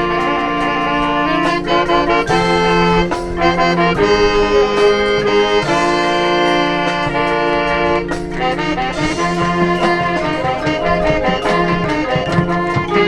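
High school marching band playing, brass to the fore: loud, sustained chords that change every second or two.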